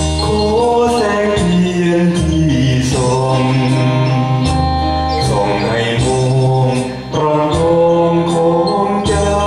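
A man and a woman singing a Thai song together into microphones over a karaoke backing track with keyboard and bass.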